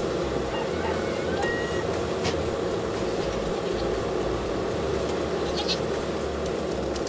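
Bobcat T770 tracked skid steer's diesel engine idling steadily, with a goat bleating briefly near the end.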